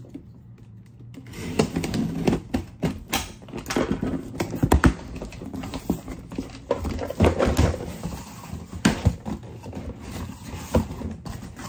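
A large cardboard shipping box being handled and opened: irregular knocks, thumps and scraping rustles of cardboard flaps and panels, starting about a second in.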